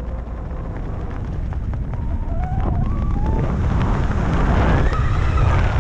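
Wind buffeting the microphone of a camera under a tandem parachute canopy, a low rumble that grows steadily louder, with faint wavering high tones over it from about two seconds in.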